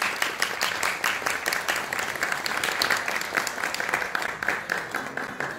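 Audience applauding with many hands clapping at once, the clapping thinning out and dying away near the end.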